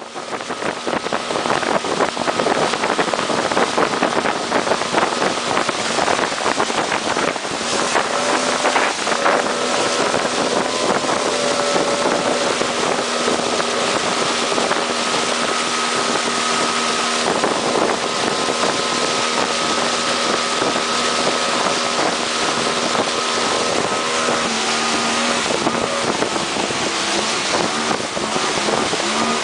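Outboard motor of a long wooden river pirogue running steadily at speed, over the rush and splash of water along the hull and wind on the microphone.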